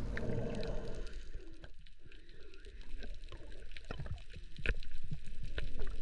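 Underwater sound heard through an action camera's waterproof housing: a muffled low rumble with scattered faint clicks and crackles, and a few sharper knocks about four to five seconds in, growing a little louder near the end.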